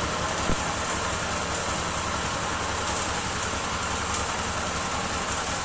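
Air-cooled single-cylinder four-stroke engine of a 2003 Honda CG Titan motorcycle running steadily with fifth gear engaged, a brief click about half a second in. The engine has a noise that the owner thinks may be a valve still slightly stuck after years of standing.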